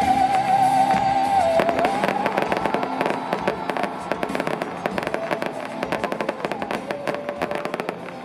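Fireworks crackling and popping in rapid, dense succession, thickening about a second and a half in, over concert music with a long held wavering note at the start.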